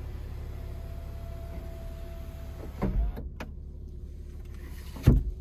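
Electric sunroof motor of a 2022 Lexus IS350 running as the glass panel moves, a steady whine with a thump about three seconds in. A sharp click follows near the end.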